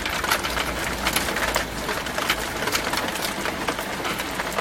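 Heavy rain falling outside an open window: a steady hiss thick with sharp drips and splashes.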